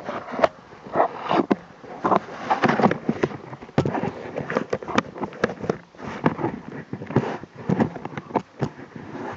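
Irregular rustling, scraping and sharp knocks close to the microphone: handling noise from the rider's gear as he moves about wearing the camera.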